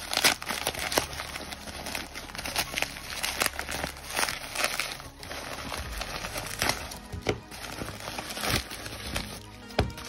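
Plastic bubble wrap crinkling and crackling as it is pulled open by hand, in dense irregular bursts that thin out in the second half, over background music.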